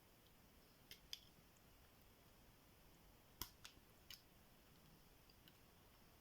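Faint clicks of a lock pick working the pins of a tubular lock under a tension tool: a few light ticks, the sharpest about three and a half seconds in, over near silence.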